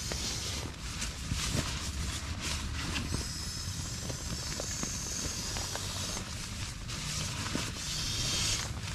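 Rustling of a tarp and gear being handled inside a tent, in swells a few seconds long, with scattered small clicks over a steady hiss of rain on the tent fabric.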